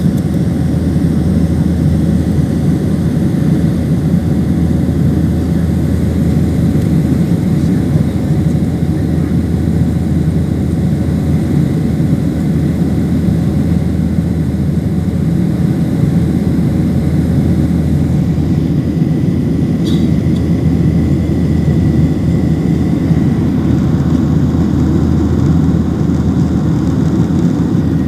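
Steady loud roar of an airliner's engines and rushing air heard from inside the passenger cabin during takeoff.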